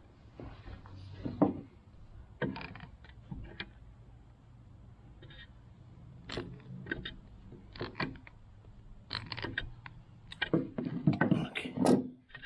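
Scattered clicks, knocks and scrapes of hands working on a leaking garden-hose connection to a dishwasher, tying the joint tighter. A denser run of louder knocks comes near the end.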